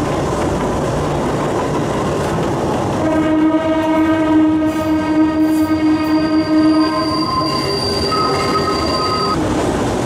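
Kurobe Gorge Railway trolley train running on its narrow-gauge track with a steady rumble of wheels on rail. About three seconds in, a long, steady pitched tone joins it. Its pitch shifts a couple of seconds before it stops near the end.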